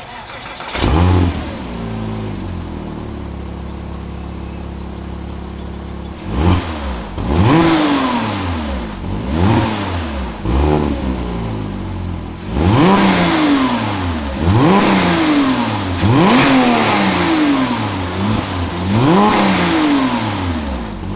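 Porsche Cayman S flat-six engine through its stock exhaust: it starts about a second in, flares and settles to a steady idle, then is revved in a series of about eight blips, each rising and falling in pitch.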